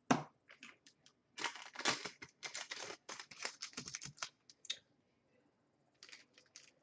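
Typing on a computer keyboard: a sharp click at the start, then quick runs of key clicks for a few seconds.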